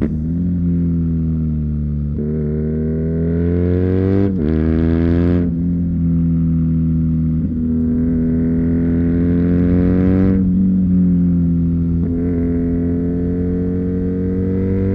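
2019 BMW R NineT's 1170 cc boxer twin, breathing through an Akrapovič slip-on exhaust, pulling under acceleration. The revs climb and drop sharply twice in the first few seconds as it upshifts, then build in one long rise. About ten seconds in they fall away and hold nearly steady.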